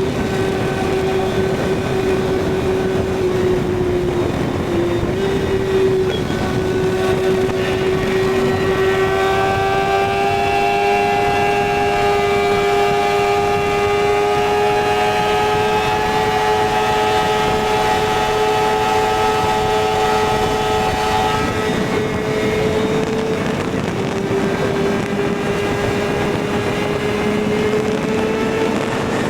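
Kawasaki ZX-6R inline-four engine running at steady high revs at road speed, with wind rushing past. Its pitch holds nearly constant, dipping slightly about five seconds in and climbing slowly near the end.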